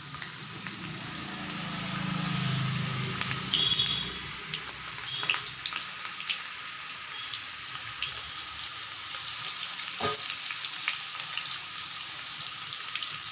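Pakoda batter, crumbled in small lumps, deep-frying in hot oil in a kadai: a steady sizzle with scattered crackles and pops.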